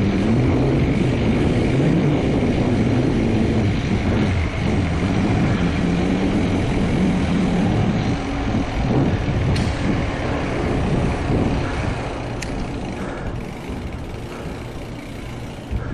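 Mountain bike rolling fast over concrete ramps and floors: knobby tyre hum and rumble that wavers in pitch with speed, under a rush of noise, with a couple of sharp clicks about ten and twelve seconds in.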